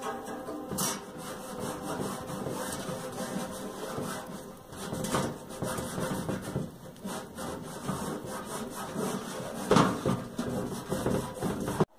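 Coarse scouring pad scrubbed back and forth against the rusty painted metal of an old bread box, a continuous scraping of short uneven strokes as the rust is rubbed off. One louder stroke comes about ten seconds in, and the scraping cuts off suddenly just before the end.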